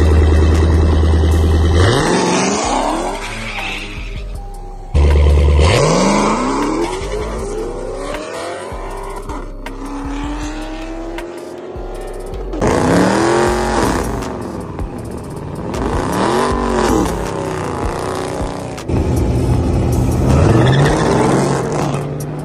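Cars accelerating hard in a street drag race, engine notes climbing in pitch again and again as they rev through the gears, with rising and falling sweeps as cars pass. Music with heavy bass plays over it, loudest in the first few seconds.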